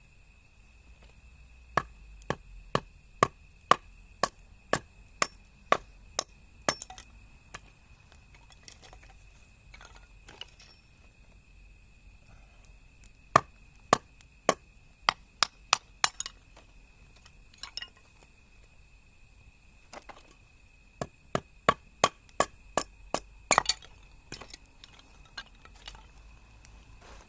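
Wood being chopped, most likely kindling split for a campfire with a hatchet. The strikes come in three runs of about two a second, with a few lighter knocks in between.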